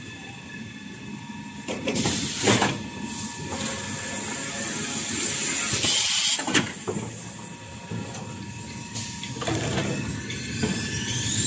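Toilet paper and kitchen towel rewinding machine running: a steady mechanical hum with a few faint fixed tones, broken by several short, louder swishes.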